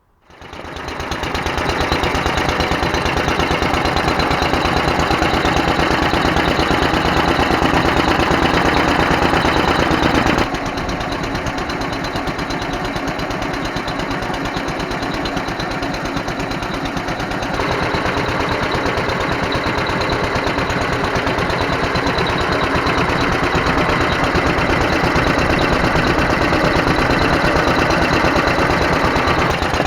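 Petter AS stationary engine running steadily with an even firing beat, fed by its rebuilt Solex 26 FV carburettor, which is shown to work. The sound fades in at the start and shifts abruptly in level and tone about 10 and 18 seconds in, where the shots change.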